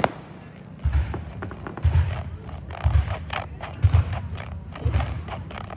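Fireworks crackling with many small sharp cracks, under five deep thumps that come evenly about once a second.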